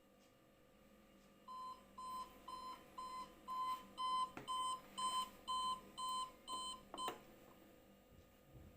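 Homemade electronic alarm clock's beeper sounding the alarm: a steady run of short, high, evenly spaced beeps, about two and a half a second, starting about a second and a half in and cutting off with a click about seven seconds in.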